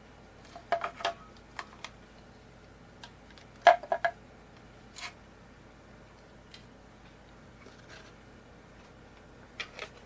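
Small hard guitar parts and tools being handled, giving scattered clicks and clinks: a quick cluster about a second in, the loudest few near four seconds in, and a couple more near the end.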